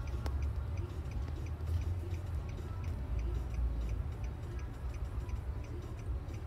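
Low rumble inside a car cabin, with a steady quick ticking of about three ticks a second.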